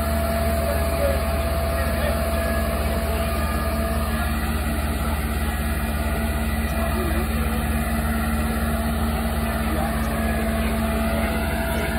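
Parked fire engine's diesel engine running steadily, a low, even hum that doesn't change, with faint voices in the background.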